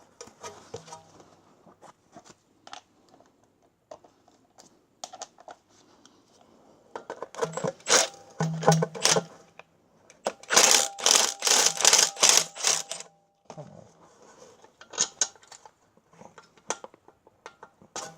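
Cordless Milwaukee M12 Stubby 3/8-inch impact wrench hammering on a rusty suspension bolt in two bursts of two to three seconds each, about seven and ten seconds in, working it loose. Light metal clinks of socket and tools come before and between the bursts.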